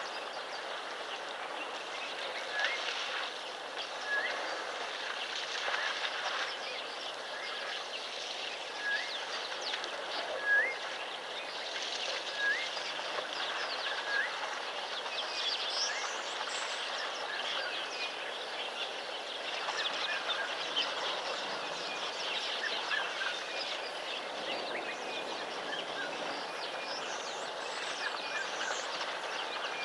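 Wild birds calling over a steady background hiss: many quick, high chirps, with one short rising note repeated every second or two through the first half.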